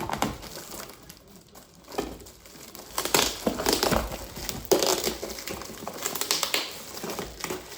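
Packaging being handled and opened: irregular crinkling and crumpling, busiest in the second half.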